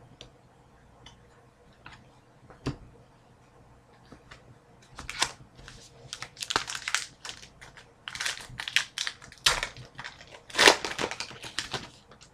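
A few light clicks, then from about five seconds in a run of sharp crackling rustles as a trading card pack's wrapper is torn open and crumpled.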